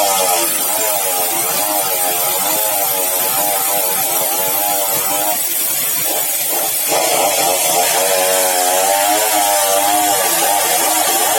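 Sawmill machinery running steadily, a loud hum whose pitch wavers up and down, briefly changing about six seconds in before settling back.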